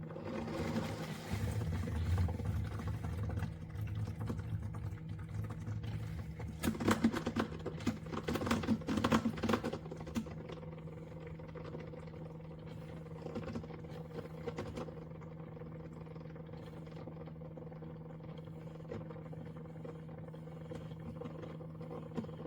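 Hamilton Beach FlexBrew Trio coffee maker running with a steady hum. Over it, irregular crackling and sputtering through about the first ten seconds, loudest between about seven and ten seconds in.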